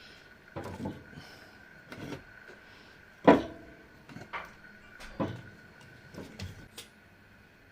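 A run of about eight knocks and clunks of things being handled and set down during kitchen work, the loudest a sharp knock about three seconds in, over a faint steady high hum.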